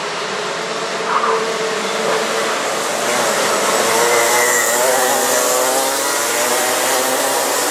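Several racing go-kart engines buzzing at high revs at once, their pitches wavering up and down, growing louder about three seconds in as the pack comes closer.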